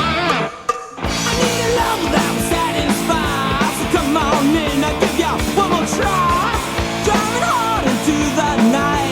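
Rock music: an instrumental passage of a song, with a bending lead line over a full band. The music dips briefly just after the start.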